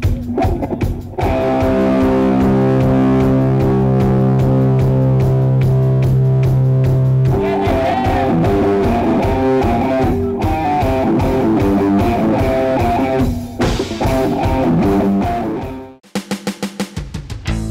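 Live rock band playing: a few drum kit hits, then a long held electric guitar chord for about six seconds, followed by a moving guitar line over the drums. The band fades out near the end, and a different rhythmic tapping sound starts.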